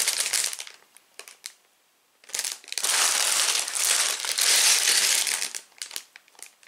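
Plastic bags of Lego parts crinkling as they are handled, in two spells with a quiet gap of about a second and a half between them, and a few light clicks.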